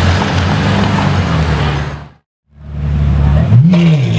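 Straight-piped Ferrari 812 Superfast's V12 running at low revs. The sound cuts out for about half a second, then the engine is blipped twice, each rev rising and falling quickly.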